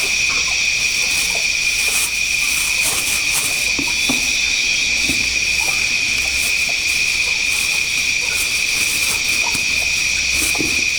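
Steady, continuous high-pitched insect drone, with faint scattered ticks and knocks beneath it.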